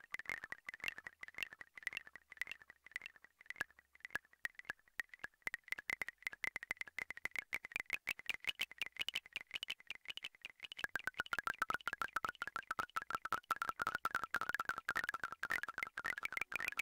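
Eurorack modular synthesizer patch playing a rapid, irregular stream of short, clicky high-pitched pings, many a second. The pitch steps down about eleven seconds in, then creeps back up near the end.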